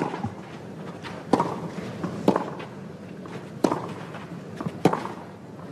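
Tennis ball struck by rackets in a baseline rally: four sharp strokes, each about a second apart.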